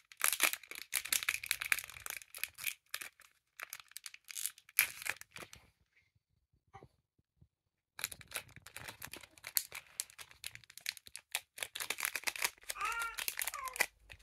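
Foil booster-pack wrappers of One Piece trading cards being torn open and crinkled, with cards rustling as they are handled. The crackling stops dead for about two seconds midway, then resumes.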